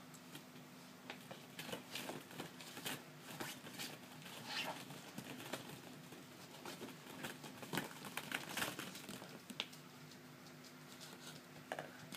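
Hollow plastic ball-pit balls clicking and rustling against each other and the play tent's fabric as a puppy noses and digs among them: light, irregular clicks, busiest a little past the middle.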